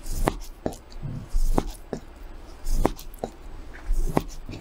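Large kitchen knife slicing raw salmon on a plastic cutting board, the blade knocking on the board about every 1.3 s, four times.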